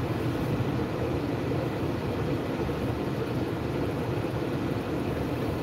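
Steady low rumble and hum inside a parked car's cabin, with no sudden sounds.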